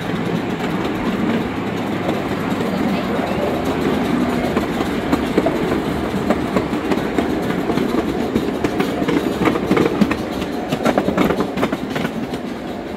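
Miniature coal-fired steam train's passenger cars rolling along narrow-gauge track, the wheels clicking over rail joints. The clicks come thicker about nine to twelve seconds in.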